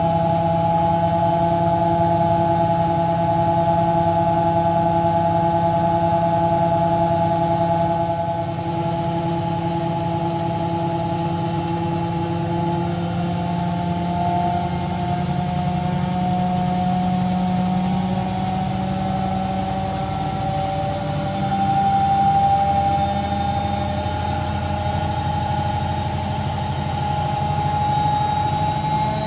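Beko washing machine on its high-speed final spin: a steady motor and drum whine over a low hum. The whine creeps slightly higher in pitch through the second half as the spin speeds up, and the sound swells briefly about three quarters of the way through.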